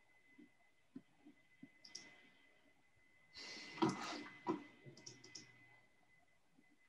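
Faint scattered clicks over an open call microphone, with a brief louder scuffling noise about three and a half seconds in and a faint steady high-pitched tone underneath.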